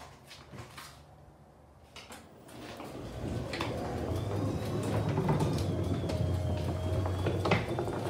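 Garage door opener motor starting about three seconds in and running with a steady low hum, as the sectional garage door rolls closed with a rumble and a faint high whine.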